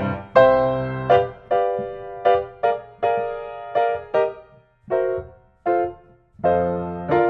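Background piano music: notes and chords struck one after another, each fading away, with a couple of brief pauses in the second half.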